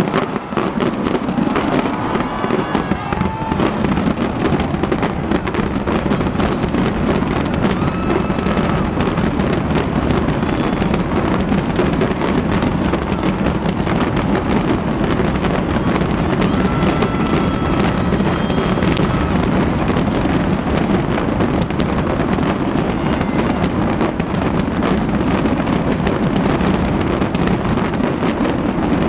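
Fireworks display going off in a dense, continuous barrage of bangs and crackles that keeps up without a break.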